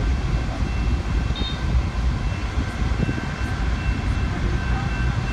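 Union Pacific train led by diesel locomotives rolling across a grade crossing: a steady low rumble of the engines and wheels on the rails, heard from inside a car.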